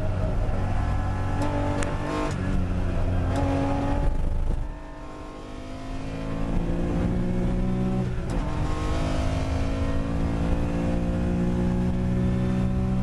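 In-car sound of a first-generation Porsche 911's 2.0-litre air-cooled flat-six under race load. The engine eases off about four and a half seconds in, then pulls hard again with a rising note, broken by an upshift about eight seconds in before climbing again.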